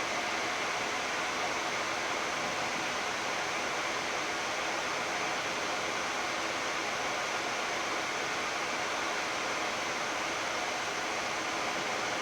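Steady, even hiss of the Boeing 787-10 flight deck at rest, the air-conditioning and equipment-fan noise of the cockpit, with faint steady tones underneath.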